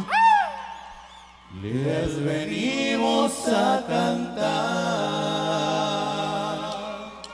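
Live norteño song: a male voice sings over the band, a note sliding down at the start and fading, then a new sung phrase from about a second and a half in.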